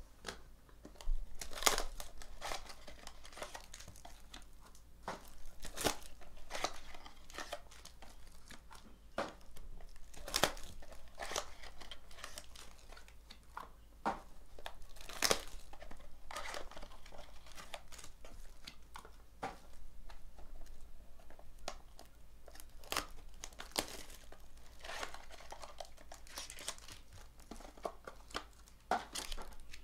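Trading card boxes being opened by hand: cardboard tearing and plastic wrapping crinkling, with many scattered sharp clicks and taps as the boxes and packs are handled.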